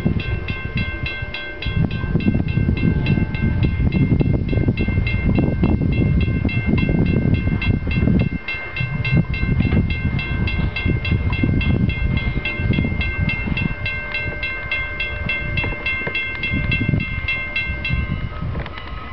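Railroad crossing warning bell ringing in fast, even strikes, several a second, while the gates come down; it stops about eighteen seconds in, once the gates are down. Heavy wind rumble on the microphone runs under it.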